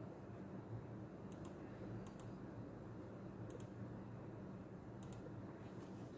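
Computer mouse button double-clicking: four quick pairs of sharp clicks, spread over a few seconds, over a low steady hum.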